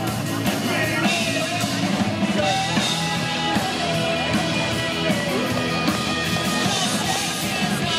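Live rock band playing: a lead singer over electric guitar, bass guitar and a drum kit, heard steadily through the stage PA.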